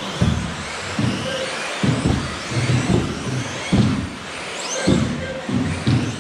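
Electric 1/10-scale off-road RC buggies racing on astroturf: faint high motor whines rise and fall as the cars accelerate, over a steady hiss of tyres and track noise. Short low pulses come through irregularly, about one or two a second, and are the loudest thing heard.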